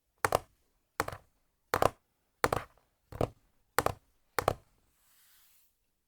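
Seven evenly spaced hard taps or knocks, each a quick double knock, about one every two thirds of a second. A soft, brief hiss follows near the end.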